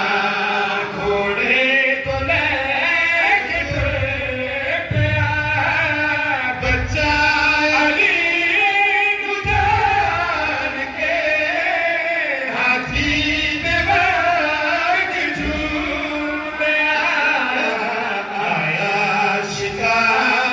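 Men's voices singing a Shia devotional qasida in long, ornamented melodic lines, with a deep rumble coming and going underneath.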